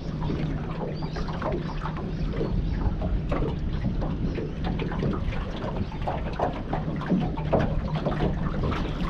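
Water lapping and splashing in many small irregular slaps, with wind on the microphone and a steady low hum underneath.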